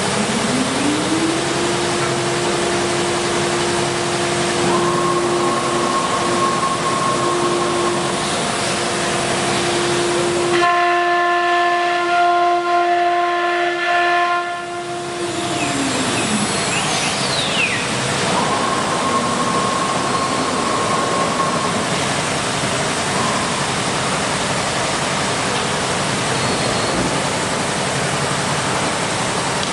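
CNC wood router at work over a loud steady hiss: a spindle whine rises in pitch about a second in, holds steady, and winds down about halfway through.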